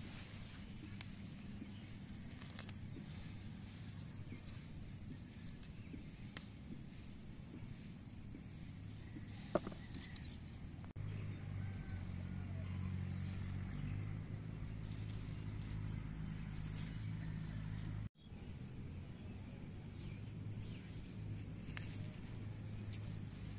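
Outdoor ambience: a steady low hum with faint, evenly repeating insect chirps. The hum grows louder about halfway through, and there is a single sharp click a little before that.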